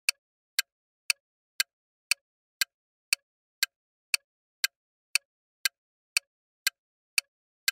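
Countdown-timer tick sound effect: sharp, evenly spaced clock ticks, about two a second, marking the time left to answer a quiz question.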